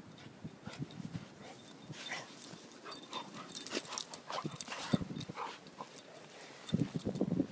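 Two dogs play-wrestling in deep snow, making short whines and yips as they mouth at each other, amid scuffling noises. Near the end come heavier crunching footsteps in the snow.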